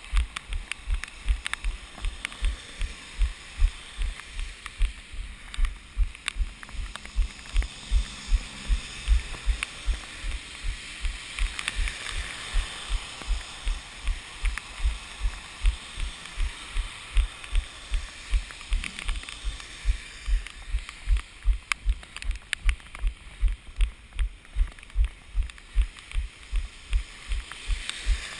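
A runner's footfalls at a steady pace, about three low thumps a second, over a faint steady hiss.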